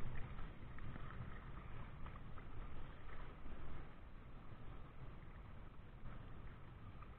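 Water sloshing and lapping, with a steady low rumble of wind on the microphone and a few faint small ticks.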